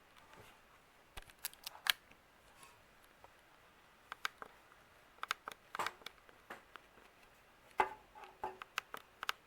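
Irregular light clicks and taps of handling noise, a dozen or so short sharp ticks spread unevenly, with one louder click near the end.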